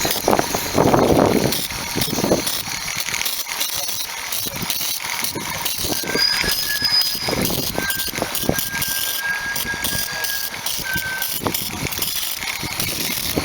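Wind buffeting the microphone over the clicking and rattling of a live-steam model locomotive and its train running on a garden railway track. A thin, steady high tone sounds for several seconds in the middle.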